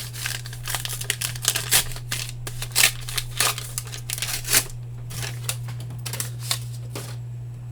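Baseball trading cards being handled and flipped through: a quick series of short papery slides and clicks as cards are moved from the stack, thick at first and thinning out over the second half.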